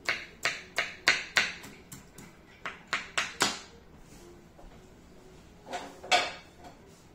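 Small kitchen knife chopping an onion on a wooden cutting board: about ten sharp chops at roughly three a second, stopping about three and a half seconds in. A single louder knock follows about six seconds in.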